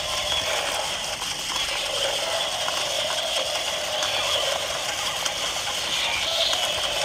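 Motorised plastic toy dinosaurs walking and flapping their wings, their small electric motors and plastic gearboxes running steadily.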